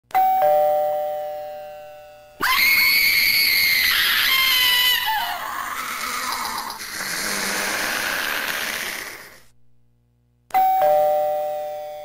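Gemmy Dropping Spider Halloween doorbell's sound chip: a falling two-note ding-dong chime rings and dies away. Then comes a loud, shrill scream-like cry with falling pitch, followed by a quieter noisy sound that fades out. After a second of silence the ding-dong chime starts again near the end.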